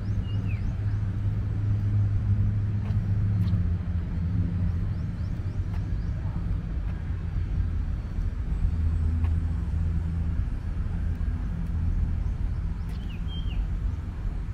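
Steady low rumble of distant city road traffic, with a couple of short high chirps at the start and near the end.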